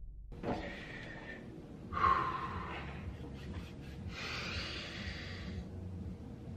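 A person's breaths or gasps, three in a row without words. The second is the loudest and has a short falling cry in it. The third is the longest.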